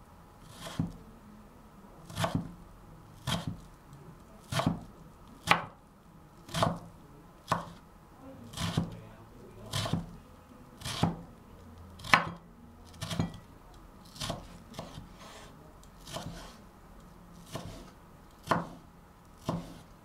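Chef's knife slicing a vegetable into thin strips on a bamboo cutting board: slow, separate cuts about one a second, each ending in a knock of the blade on the board. The knocks grow fainter for a few seconds in the second half, then strong again near the end.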